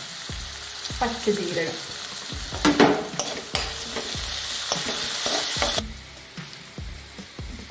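Chopped onions frying in hot coconut oil in a kadai, sizzling steadily, with a spoon scraping and stirring them around the pan about a third of the way in. The sizzle drops suddenly to a quieter level near the end.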